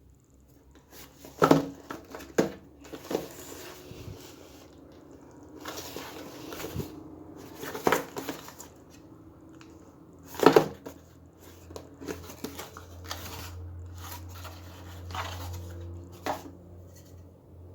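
Speaker packaging being handled and opened: rustling and tearing of wrapping, with irregular sharp knocks and clicks as the box and parts are moved. A low steady hum comes in during the second half.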